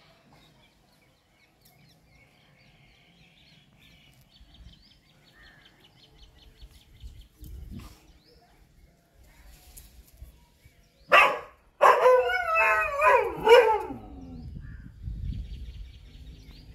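Chippiparai dog barking: one sharp bark about eleven seconds in, then a loud run of barking lasting about two seconds that falls in pitch at the end.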